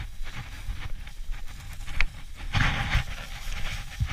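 Footsteps and rustling of tall dry grass as a person walks through it, with a low rumble on the body-worn microphone; a louder brush of grass comes a little past halfway.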